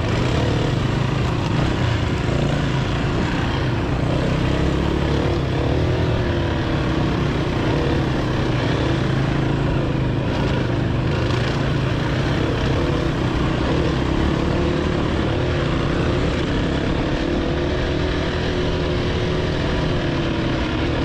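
Dirt bike engine running at a steady trail-riding pace, heard close up from the bike itself, its pitch wavering slightly as the throttle rises and falls.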